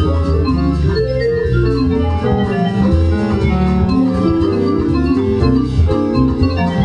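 Live band of keyboard, hollow-body electric guitar, bass and drums playing a bossa nova tune, with sustained keyboard chords over a moving bass line and light cymbal strokes.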